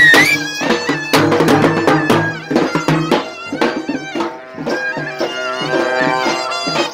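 Live traditional folk band: a double-reed pipe plays a wavering, gliding melody over frequent hand-drum beats.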